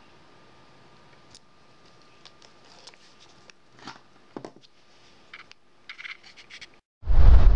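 Faint scattered clicks and scratches of multimeter test probes being handled and lifted off the circuit, over low room noise with a faint steady hum. Near the end comes a loud, short rush of noise lasting under a second, then it cuts off.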